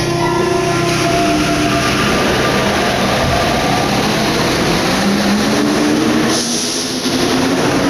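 Rubber-tyred Paris Métro Line 14 train with its motor whine falling in pitch in the first couple of seconds, then a whine rising in pitch from about five seconds in, over steady running noise, with a brief hiss near six seconds.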